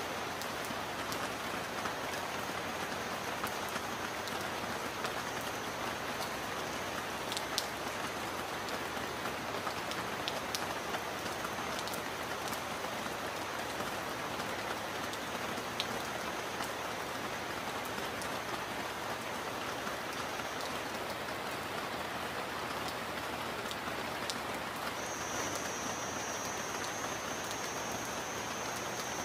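Steady rain falling, an even hiss with a few sharper drop ticks.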